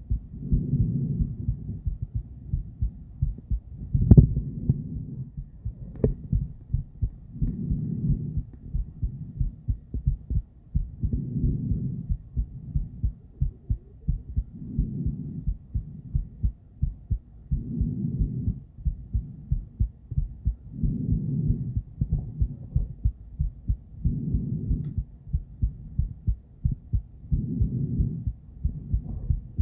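A woman's heartbeat picked up by an ultrasonic doppler device: a steady, regular train of low thumps. A longer swell of low noise rises about every three seconds, and a sharper knock comes about four seconds in.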